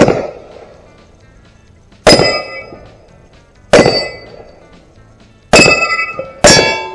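Five pistol shots, spaced one to two seconds apart, with the steel plates of a Texas Star target ringing after the hits.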